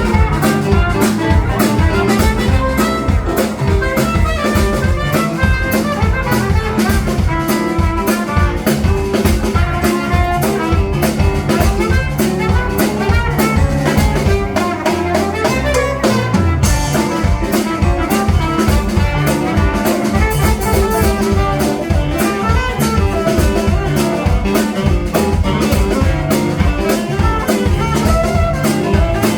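Live blues band playing an instrumental passage: a drum kit keeps a steady beat under bass and pitched lead instruments, and the cymbals grow brighter a little past halfway.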